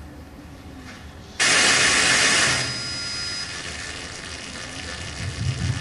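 A theatre sound system cuts in with a sudden loud hiss about a second and a half in. After about a second the hiss settles to a lower, steady level, with a low hum growing near the end.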